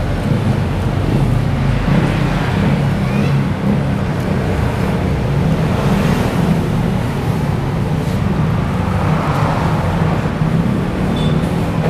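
Steady road traffic noise: a continuous low rumble of passing engines.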